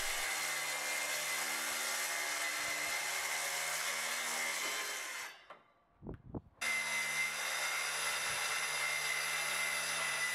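Plunge track saw running on its guide rail and cutting across the end of an oak door, a steady whine. It fades out about five seconds in, leaving a second or so of quiet with a couple of knocks, then runs steadily again.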